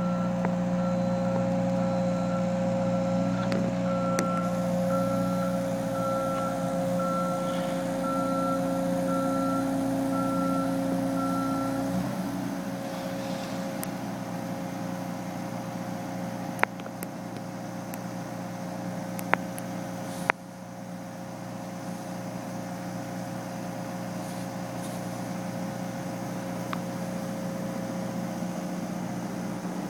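A heavy construction machine's engine running steadily, with a reversing alarm beeping about once a second until about twelve seconds in. A few sharp knocks later on.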